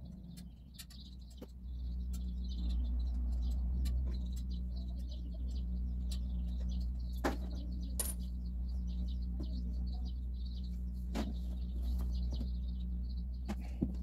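Small birds chirping on and off over a steady low hum, with a few sharp clicks and knocks from handling the tire-sealant bottle and its hose at the bike's valve.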